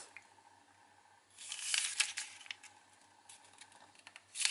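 Origami paper rustling and sliding on a wooden table as it is folded in half, starting about a second and a half in and lasting about a second, followed by a few light ticks as the crease is pressed.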